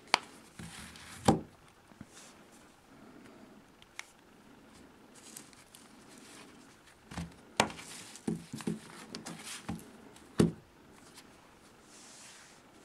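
Handling noise from two smartphones: a flip-cover phone case being shut and the phones being picked up and laid on a tabletop. It comes as scattered sharp knocks, taps and clicks, the loudest shortly after the start and again a couple of times later, with a quick run of smaller taps in between.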